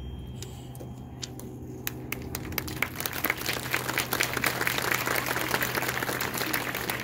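Audience applauding: a few scattered claps at first, swelling into steady applause by about three seconds in.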